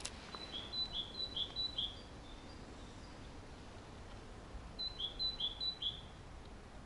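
A songbird singing two short phrases, each a run of about four repeated two-note figures, a high note then a lower one, with a pause of a few seconds between them.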